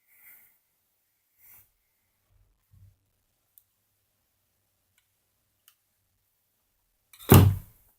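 Faint, scattered clicks of LEGO plastic pieces being handled and pried apart, then one loud thump near the end.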